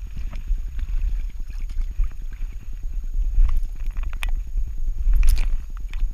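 A Saarloos wolfdog walking through shallow marsh water and wet grass, heard from a camera strapped to her back: a steady rumble and knocking of the mount against her body, with her paws sloshing and splashing. There are a few sharper splashes, the loudest a little after five seconds in.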